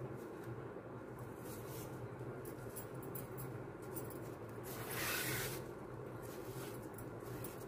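Faint rustling and light clicks of ribbon being handled and wrapped around a bangle, over a steady low hum, with one louder brief rustle about five seconds in.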